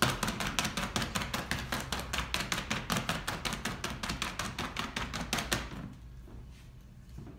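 A pair of printer's ink balls patted quickly over hand-set metal type to ink it for printing. It makes a fast, even tapping about six times a second, which stops a little before the end.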